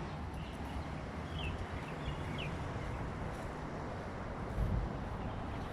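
Outdoor park ambience: a steady low rumble and hiss, with a few faint short high chirps between one and two and a half seconds in and a brief low bump near the end.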